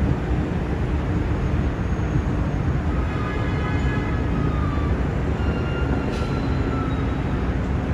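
Tow truck engine running steadily with a low rumble, with faint high whines coming and going from about three seconds in.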